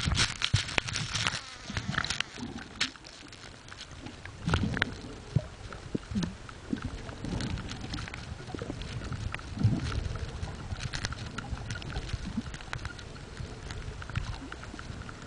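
Underwater ambience picked up by a submerged camera: a constant crackle of scattered sharp clicks, with low whooshes of moving water now and then.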